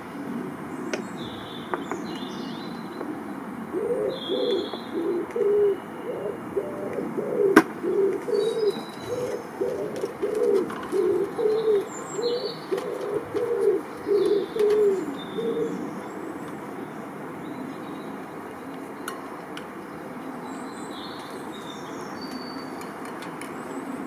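A pigeon cooing: a run of low, repeated coos from about four seconds in until about sixteen seconds, over faint chirping of small birds. A single sharp click about a third of the way through.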